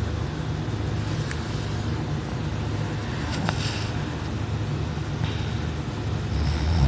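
A person snoring in deep sleep: a low, rattling rumble from the throat, with a louder snore starting near the end.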